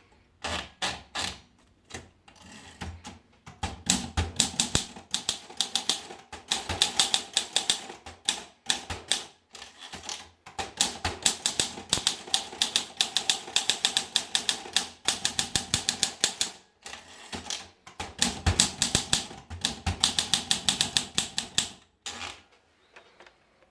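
Olympia SM5 manual portable typewriter being typed on: quick runs of sharp key strikes, several a second, broken by short pauses, stopping near the end.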